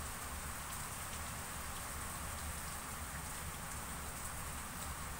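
Steady background hiss over a low hum, even and unbroken throughout.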